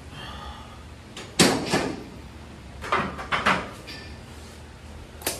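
Loaded barbell and plates clanking against a steel squat rack as the bar is walked in and racked after a heavy squat. There is a loud metal clank about a second and a half in with a second one right after, a quick cluster of clanks around three seconds, and a short sharp click near the end.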